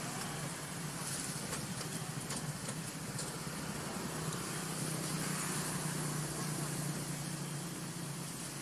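Steady outdoor background hiss with a low hum under it that swells a little past the middle.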